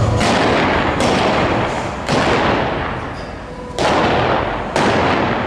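Five gunshots fired in quick succession during a mounted shooting run, each sharp crack followed by a long echoing tail.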